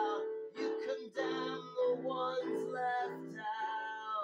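A man singing with his own electronic keyboard accompaniment: a sung melody over held chords, the singing breaking into short phrases.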